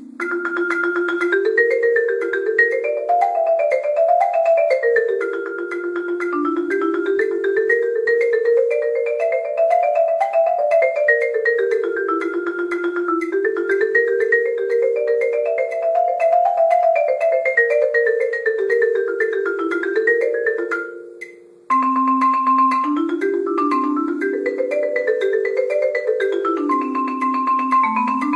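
Yamaha marimba played with mallets in fast runs of notes that climb and fall in repeated sweeps. Just after twenty seconds in the sound fades away, then starts again suddenly.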